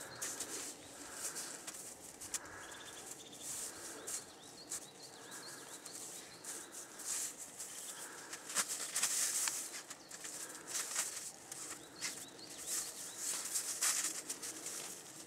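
A dog rolling and rubbing its back and head in crusty old snow: repeated scraping, crunching hisses as its fur slides over the snow. Small birds chirp faintly now and then.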